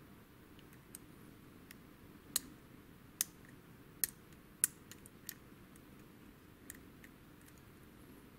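Lock pick working the pin stack of a WILKA euro cylinder lock under tension: sparse, irregular small metallic clicks as pins are probed and set, with a few louder clicks between about two and five seconds in.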